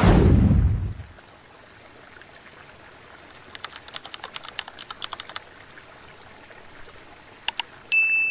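A loud whoosh that falls away within a second, then a quick irregular run of light clicks, like typing, for about two seconds. Two more clicks follow, and near the end a short high beep.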